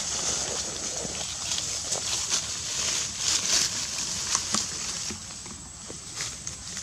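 Forest ambience: a steady high-pitched insect hiss, with scattered short clicks and crackles of dry leaf litter.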